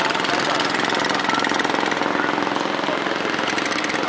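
Long-tail boat engine running steadily close by, with a fast, even putter, as the boat moves off under power.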